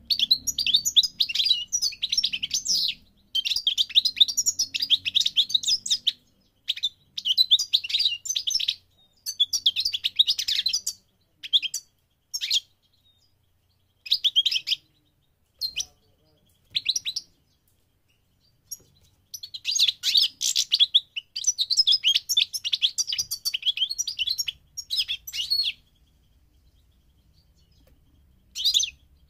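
European goldfinch singing: rapid, liquid twittering phrases in bursts of a few seconds with short pauses between, the longest run of song in the middle and a brief phrase after a pause near the end.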